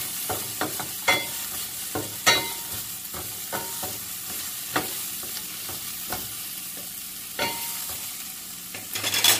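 Sliced onion, ginger and garlic sizzling in a little oil in a stainless-steel frying pan while a wooden spatula stirs them, with scattered scrapes and knocks of the spatula on the pan and a quick cluster of them near the end.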